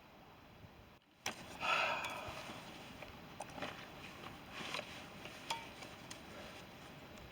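Faint steady hiss, then an abrupt change about a second in, followed by rustling and scattered light clicks and knocks, with a brief pitched sound shortly after the change.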